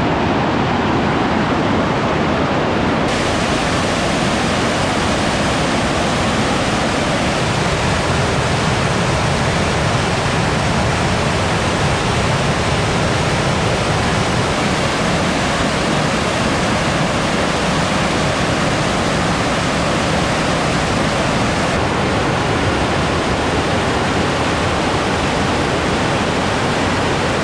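Large waterfall on the Nzoia River thundering: a loud, steady rush of water crashing onto rocks.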